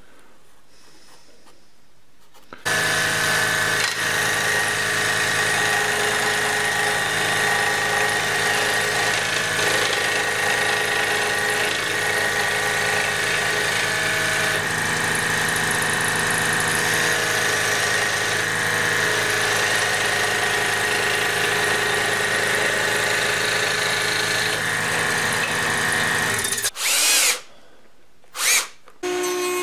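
An electric power tool starts a couple of seconds in and runs at a steady speed for about 24 seconds, then stops. Two short bursts of it follow near the end.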